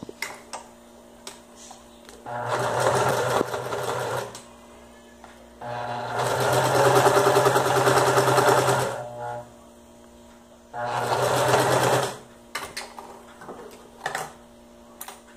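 Singer electric sewing machine stitching through layers of felt in three runs: a short one about two seconds in, a longer, louder one from about six to nine seconds, and a brief one near eleven seconds. Between runs there is a faint steady hum and a few small handling clicks.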